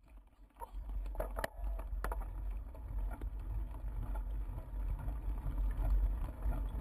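Steady low rumble of wind and riding vibration on a bike-mounted GoPro's microphone as a bicycle is towed by a husky over a bumpy grass path, fading in over the first second. A few sharp knocks and rattles from the bike come about one and two seconds in.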